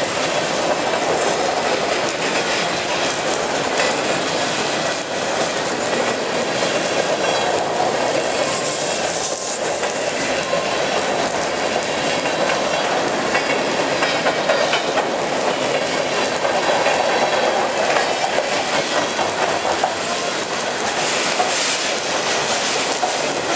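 Freight cars rolling past close by: a steady loud rumble of steel wheels on the rails.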